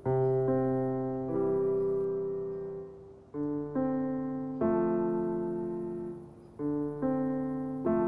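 Background piano music: slow chords, each struck and left to ring and fade before the next, a new chord every second or two.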